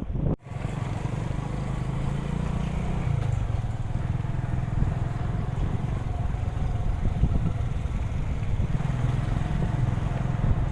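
Motorcycle engine running steadily on the move, with wind buffeting the microphone as a low, rough rumble.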